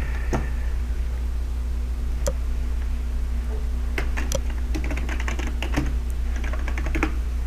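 Computer keyboard typing: a few scattered keystrokes, then a quick run of keys about four to six seconds in, and a few more near the end, over a steady low hum.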